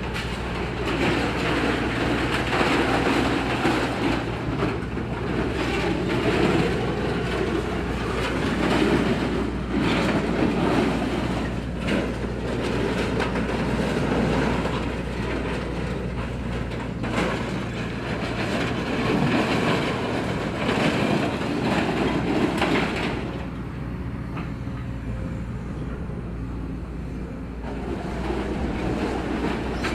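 Link-Belt 210 excavator working scrap metal: its diesel engine runs steadily under a continuous grinding clatter of metal being pushed and scraped, with a few sharp knocks. The clatter eases for a few seconds near the end.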